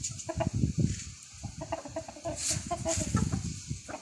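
Chickens clucking, a quick run of short repeated clucks with a brief pause just after a second in.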